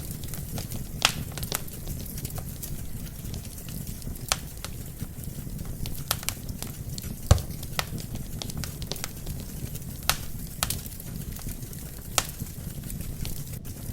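Wood fire burning in a fireplace: a steady low rush of flame with sharp, irregular crackles and pops from the logs, the loudest pop about seven seconds in.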